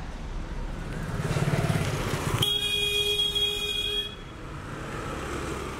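A motorcycle passes close by, its engine sound swelling and then fading, and a vehicle horn sounds steadily for about a second and a half before cutting off, over street traffic.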